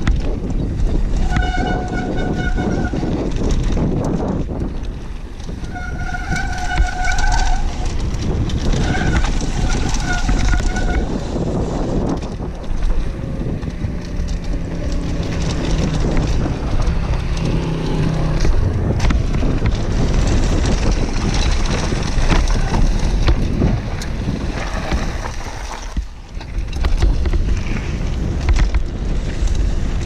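Downhill mountain bike ridden fast over a dirt trail, heard from a camera on the rider: wind buffeting the microphone, knobby tyres on dirt and gravel, and the bike rattling over bumps. A short steady whistling tone sounds three times in the first ten seconds or so.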